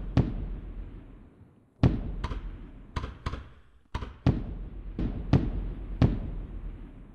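Consumer aerial fireworks going off: about eleven sharp bangs, mostly in close pairs, each followed by a fading rumble.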